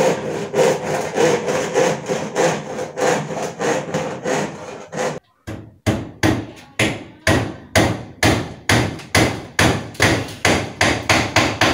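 Hammer blows struck in a steady rhythm, about two to three a second, with a short pause about five seconds in before the hammering resumes.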